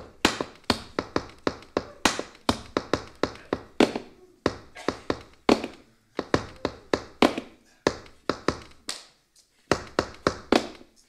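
Tap shoes striking a stage floor in an unaccompanied tap solo: quick clusters of sharp taps and heavier stamps, broken by short pauses.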